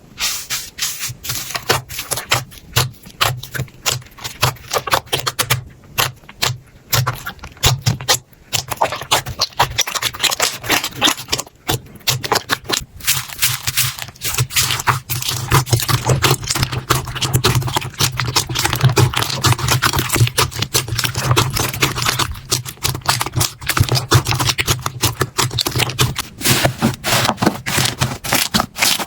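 Slime being squeezed, poked and stretched by hand, giving a dense, fast run of small clicks, pops and crackles with short pauses now and then.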